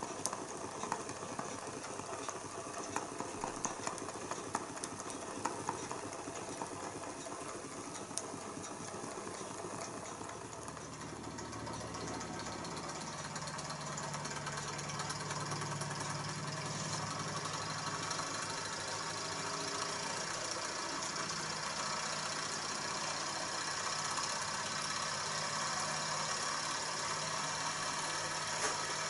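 Small model Stirling engine with a vertical crankshaft and horizontal flywheel running, with light rapid ticking from its moving parts. About ten seconds in, the ticking gives way to a steadier hum.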